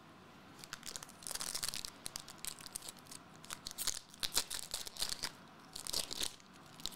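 Foil trading-card pack wrapper being handled, crinkling and tearing open in a run of crackly rustles.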